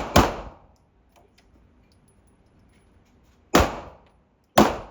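9mm semi-automatic striker-fired pistol being fired with 9mm ball ammunition: two shots about a third of a second apart at the start, then two more about a second apart near the end.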